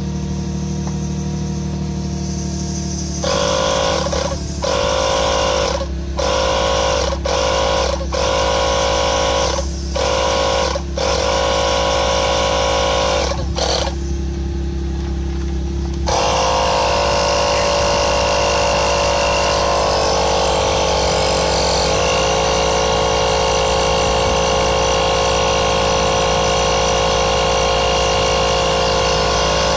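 Small electric air compressor from a tyre puncture repair kit inflating a tyre. It starts and cuts out about eight times in quick succession, then from about halfway runs steadily, briefly labouring lower in pitch for a couple of seconds, over a steady low hum.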